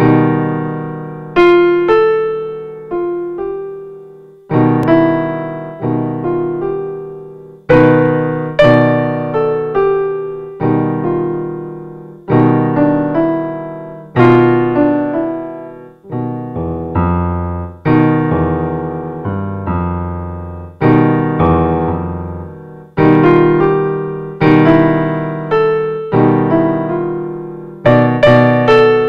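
Solo piano music: chords and notes struck roughly once a second, each left to ring and fade.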